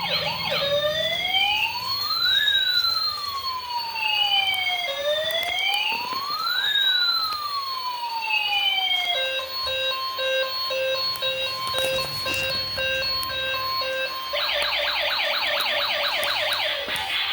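Electronic police siren cycling through its modes: a brief fast yelp, then a slow wail rising and falling twice, a steady held tone about nine seconds in, and a rapid yelp again from about fourteen seconds in.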